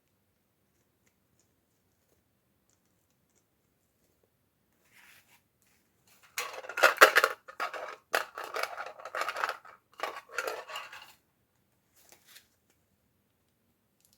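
Toy packaging being opened by hand: a close run of crackly cutting and scratching strokes lasting about five seconds, starting about six seconds in, with a faint pair of strokes shortly after.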